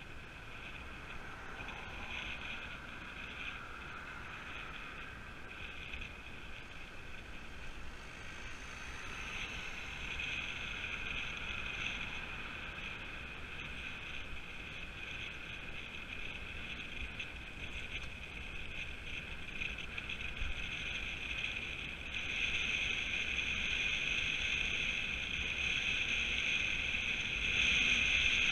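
Road noise from a bicycle riding along tarmac: tyres rolling and wind over the mounted camera, with a steady high hum over a low rumble. It grows gradually louder and steps up about two-thirds of the way through.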